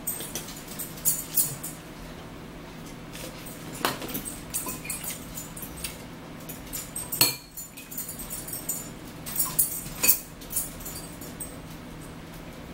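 Scattered crinkles, clicks and clinks of mealtime handling: a plastic water bottle crinkling in the hand near the start, then a fork clicking against a bowl, over a steady low hum.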